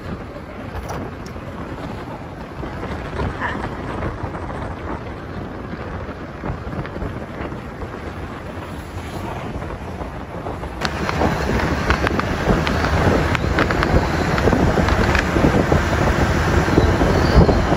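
Wind rushing over the microphone on a moving scooter, with street traffic beneath it. About eleven seconds in the noise grows louder and brighter, with scattered sharp pops.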